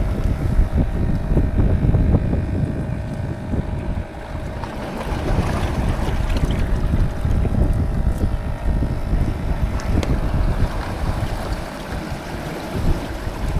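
Wind buffeting the microphone in an uneven low rumble, with surf washing on the rocks.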